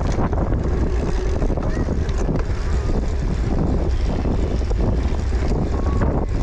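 Steady wind rumble on a moving microphone, with rattle and crunch from a cyclocross bike ridden fast over rough ground.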